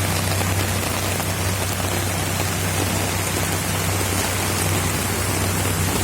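Heavy rain falling steadily, with a constant hiss of drops hitting surfaces and a steady low hum underneath.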